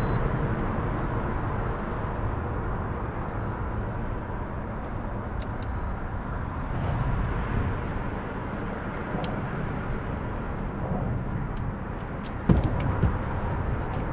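Wind buffeting the camera's microphone, a steady low rumble and hiss. A single sharp thump comes near the end.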